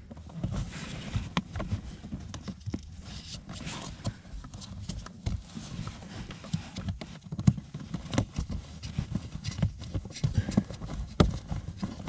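Hands working a car's cabin air filter out of its plastic housing: irregular plastic clicks, knocks and scraping with no steady rhythm.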